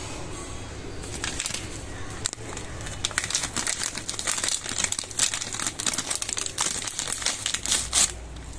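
Plastic packet of a Vim Power Scrub pad crinkling as it is handled and the scrub pad is pulled out of it. Dense crackling starts about a second in and is loudest near the end.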